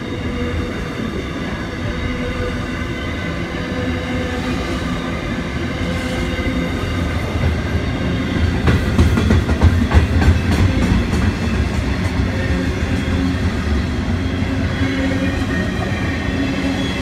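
Container freight train wagons rolling past on the line next to the platform: a steady rumble of steel wheels on rail. A quick run of clacks as wheels cross rail joints comes around the middle, where it is loudest.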